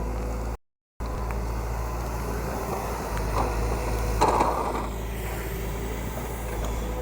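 An engine running steadily with a low rumble, cut off by a short dropout to silence just under a second in, with a brief louder noisy burst about four seconds in.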